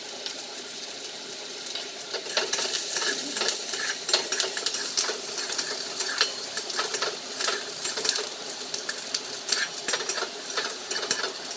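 A spoon stirring and repeatedly clinking against a small bowl as tomato, soy and chili sauces are mixed together, starting about two seconds in. Underneath runs a steady sizzle of frying from the pan.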